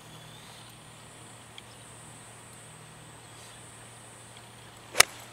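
Golf club striking a ball once, a single sharp crack near the end, over a faint steady background hum.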